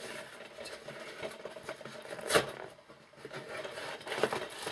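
Cardboard mail packaging being pulled and torn open by hand: scratchy rubbing and scraping, with one sharper, louder tear about halfway through.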